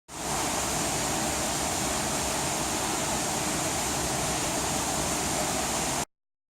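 Steady rushing of running water, even and unbroken, starting and stopping abruptly.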